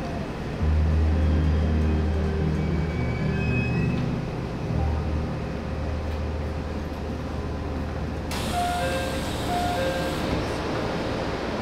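Background music with low bass notes over the running noise of a commuter train pulling into a station. About eight seconds in, a sudden hiss and short beeping tones come in as the train's doors open.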